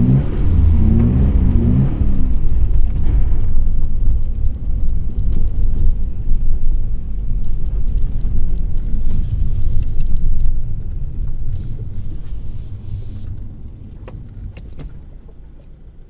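Toyota GR86's 2.4-litre flat-four boxer engine heard from inside the cabin, its pitch rising and falling through a gear change in the first two seconds, then running with a steady low rumble. The sound fades away over the last few seconds as the car slows, with a few faint clicks.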